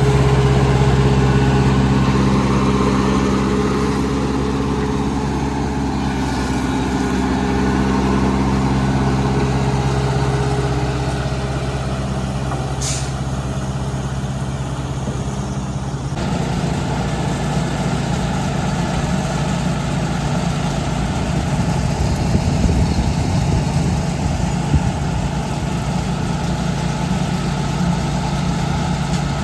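Heavy diesel engines of road-construction machinery running steadily, with a brief hiss about halfway through. About halfway through the sound changes abruptly to a rougher, noisier engine running.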